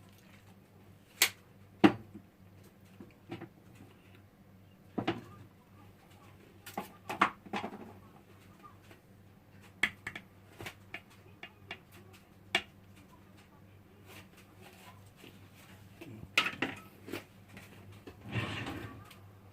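Scattered light clicks and knocks of kitchen handling as soy sauce is measured out with a tablespoon: a spoon and seasoning bottle being picked up, tipped and set down, over a low steady hum.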